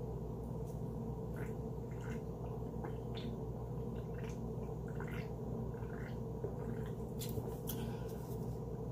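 A person drinking from a can, with faint short swallowing sounds every second or so over a steady low hum.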